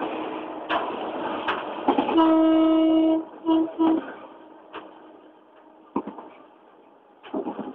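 Air horn of a GM GT22 diesel locomotive sounded from inside the cab: one long blast of about a second, then two short blasts. Before the horn there is running noise with sharp clicks every second or less. After the horn the cab is much quieter.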